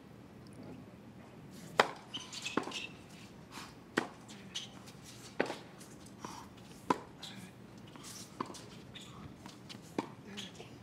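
Tennis rally on a hard court: a sharp pop each time a racket strikes the ball, about every one and a half seconds, with softer bounces of the ball in between.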